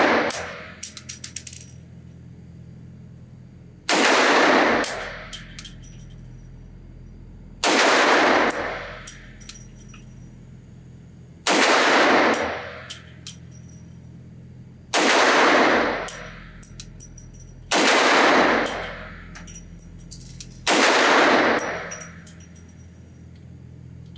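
Coonan Arms Model A .357 Magnum 1911 pistol fired six times at a slow, deliberate pace, one shot every three to four seconds. Each shot echoes off the walls of an indoor range and is followed by small metallic clicks of the ejected brass landing.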